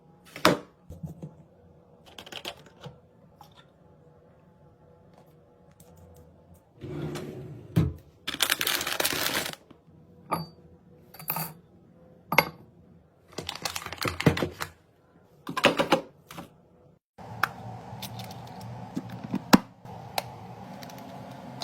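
Household items being handled and set down: a run of separate clicks, taps and knocks, with a short burst of hiss about nine seconds in. From about seventeen seconds on, a steady hum runs under the taps.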